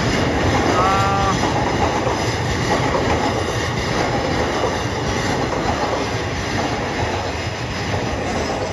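Electric commuter train moving through the station: steady running noise of steel wheels on the rails, with a brief high squeal from the wheels about a second in.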